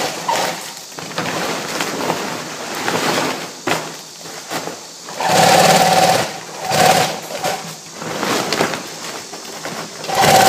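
Rotating-hook lock-stitch big-bag sewing machine stitching through woven polypropylene jumbo-bag fabric and webbing. It runs in uneven spurts with a steady mechanical rattle, loudest in a run about halfway through and a short one soon after.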